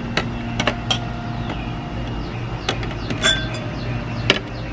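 Glassware and glass candle holders clinking as they are set down on a cloth-covered table: several light, separate clinks, one of them ringing briefly. A steady low hum runs underneath.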